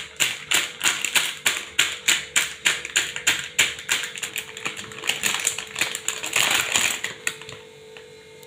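Stone nora (grinding-stone pestle) pounding boneless chicken flat through a plastic bag on a counter: a steady run of dull strikes, about three a second, that stops about seven seconds in.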